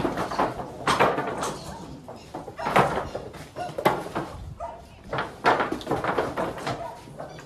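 Irregular knocks and bangs from cattle being worked through a livestock squeeze chute, its gates and rails struck about once a second.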